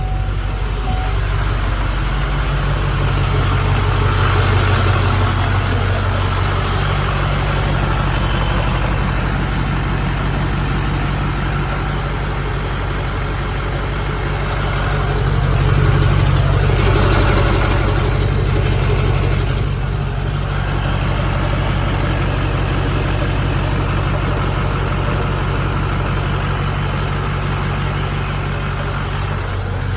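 LB7 Duramax 6.6-litre V8 turbodiesel idling rough, a steady low diesel clatter, swelling briefly about halfway through.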